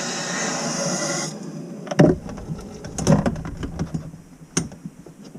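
Water running with a steady hiss through the outdoor shower's hot-water side, cutting off abruptly about a second and a half in, followed by a few sharp knocks and thumps.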